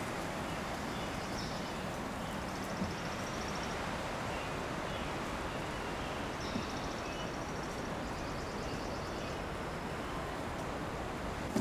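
Steady wind blowing through Monterey pine trees. A small bird gives a high, rapid trill twice, and there are a couple of light knocks.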